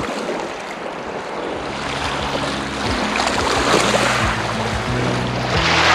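Small waves washing onto a sand and pebble lakeshore, a steady hiss that swells near the end. Background music fades in about two seconds in, with sustained low notes and soft beats.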